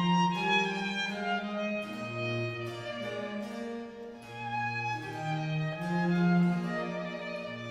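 Background music of slow bowed strings: a violin melody in long held notes over low sustained cello-range notes.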